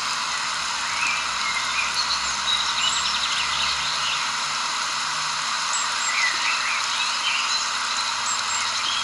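Outdoor nature ambience: a steady, even hiss with short bird chirps scattered through it, clustering at about one to four seconds in and again at about six to seven seconds.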